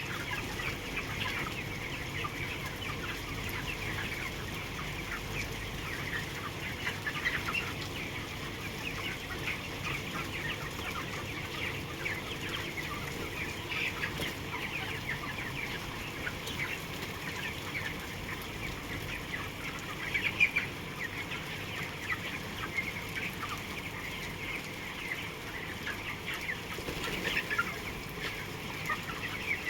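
A large flock of chickens calling all at once: a dense, steady chorus of many short chirps and clucks, with a few louder calls standing out now and then.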